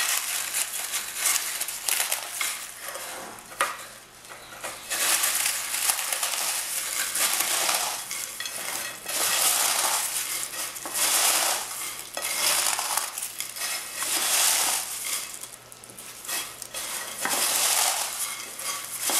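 Dry biscuits being crushed and broken up by gloved hands in a glass bowl: irregular bursts of crunching and crackling, with short quieter pauses between handfuls.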